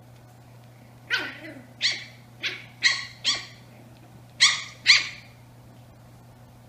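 A Brussels Griffon puppy barking during rough play: seven short, high-pitched yaps, five in quick succession from about a second in, then two more after a brief pause.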